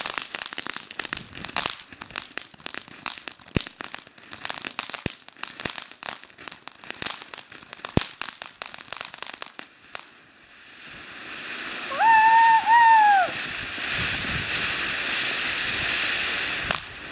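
Ground fountain firework: a fast run of sharp crackles for about ten seconds, then a steady spraying hiss with a short high tone that rises, holds and falls about twelve seconds in; a single click near the end.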